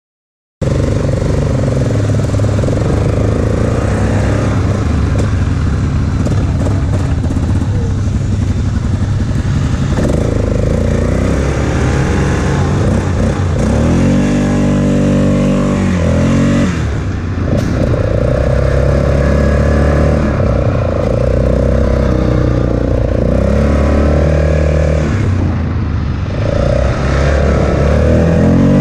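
Single-cylinder ATV engine running while the four-wheeler is ridden over sandy trails, starting about half a second in. Its pitch rises and falls as the throttle changes, with short drops in engine note about two-thirds of the way through and again near the end.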